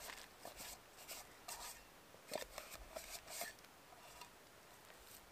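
A handful of wet moss being scrubbed around a small camp cooking pot: a run of short, faint scraping strokes, a few tenths of a second apart, that die away about three and a half seconds in.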